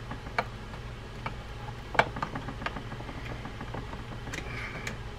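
A small screwdriver tightening a screw into the anti-reverse assembly of a Penn SpinFisher 6500SS spinning reel: scattered light metal clicks and ticks, the sharpest about two seconds in, over a low hum.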